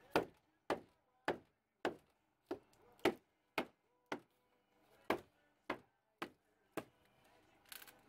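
A mallet driving a chisel into a freshly milled timber beam, cutting out a notch: about a dozen sharp strikes at roughly two a second, with a short splintering crack near the end as the waste block breaks free.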